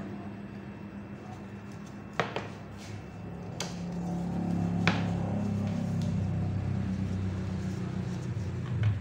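A few sharp plastic clicks and knocks as a cut-PVC lampshade is handled on a workbench, over a steady low hum that grows louder about halfway through.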